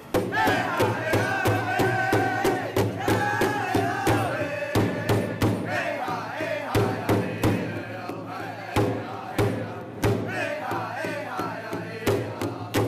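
Powwow drum group: several singers chanting high-pitched in unison over a steady, even beat struck together on a large shared drum.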